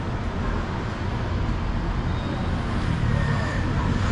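City street traffic noise: a steady rumble of cars, with a vehicle engine hum growing louder near the end.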